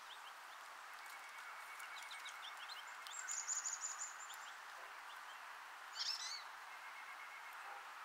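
Small songbirds calling around a winter feeder: scattered short high chips, a rapid high trill about three seconds in, and a short harsher call about six seconds in, over a steady background hiss.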